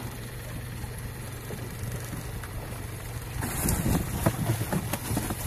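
Fishing boat's engine running with a steady low hum; about three and a half seconds in, louder irregular knocks and clatter join it.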